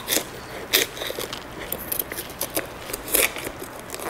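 A kitchen knife cutting into the core of a raw cauliflower, making irregular crisp crunching snaps, about five in a few seconds.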